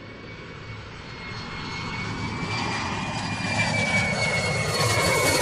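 Aircraft engine with a steady high whine, growing steadily louder as it approaches.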